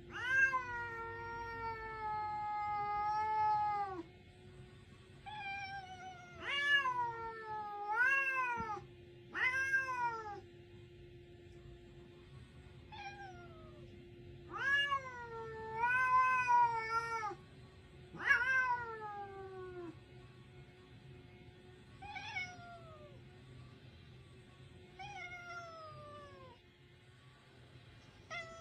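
Domestic cat yowling in a standoff with another cat: a run of long, drawn-out moans, the first held steady for about four seconds, the next ones swooping up and down in pitch. Toward the end come shorter, falling cries a few seconds apart. These are the threat yowls of a cat warning off a rival.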